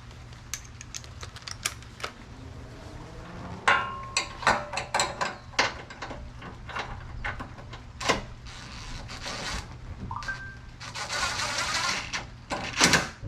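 Hand work on a pop-up headlight assembly: a run of sharp clicks and knocks as a spacer and parts are fitted, with a rasping stretch near the end. A low steady hum runs underneath.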